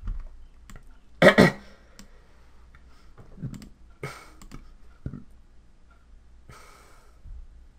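A few sharp computer-mouse clicks picked up close to a desk microphone, the loudest about a second in, with softer small clicks and handling noises spread through the rest.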